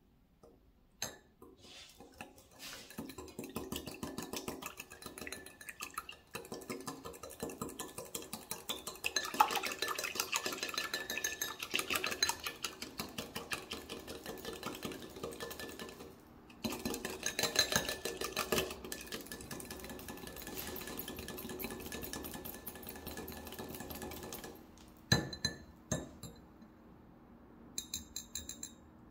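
Small wire whisk beating egg yolk in a glass bowl: a fast, steady rattle of the wires clicking against the glass, with a short break about halfway. A few separate sharp taps come near the end.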